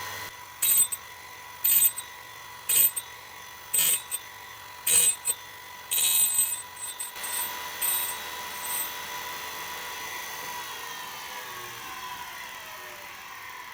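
Home-built mini cutter grinder's spindle motor running with a steady high whine. For the first six seconds short harsh bursts come about once a second, then a few more at irregular spacing. From about ten seconds in, the whine falls in pitch as the spindle spins down.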